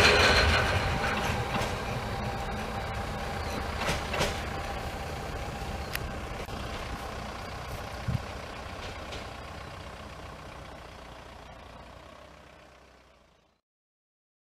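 Narrow-gauge electric multiple unit of the Tatra Electric Railway running on the track, its running noise fading steadily with a few sharp wheel clacks along the way. The sound cuts off to silence near the end.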